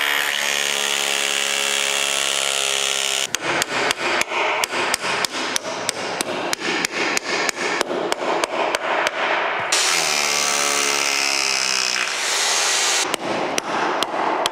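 Electric drill boring an anchor hole, then a hammer driving a hammer-in anchor (Schlagdübel) home with quick blows, about three a second. The drill runs again for a couple of seconds, then more hammer blows near the end.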